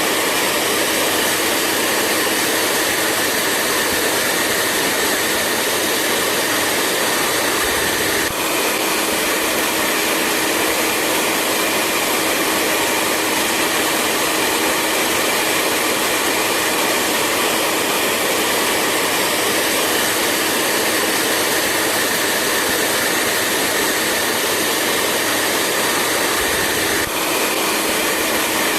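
Hair dryer running steadily at a constant speed, a whooshing rush of air with a faint steady hum from the motor, dipping very briefly twice.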